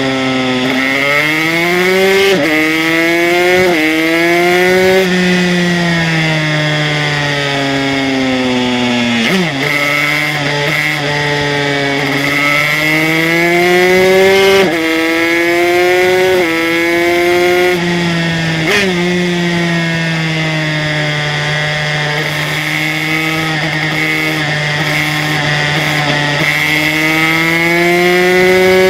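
Aprilia RS125 single-cylinder two-stroke engine, fitted with an HTM Racing 144cc kit, revving hard on track. Its pitch climbs under acceleration and sinks through corners, with several abrupt drops at gear changes.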